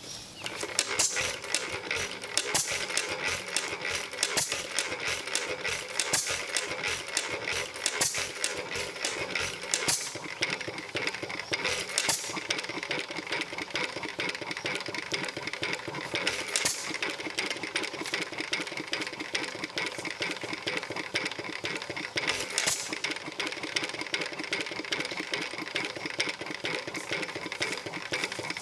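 A 1½ HP Worthington hit-and-miss engine, just hand-started from cold, running with a steady rapid clatter of its valve gear and flywheels. A sharp firing bang comes every second or two at first, then only every four to six seconds as the engine coasts between hits.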